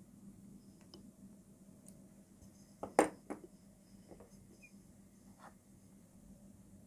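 Small metal scissors cutting acrylic yarn, with a sharp metallic clink and a few quick clicks about three seconds in, the loudest sound here, then a few lighter clicks.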